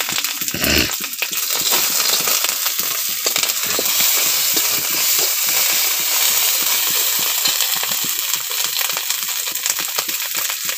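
Onion masala sizzling in hot oil in an aluminium kadai, stirred with a metal spatula that scrapes and clinks against the pan throughout.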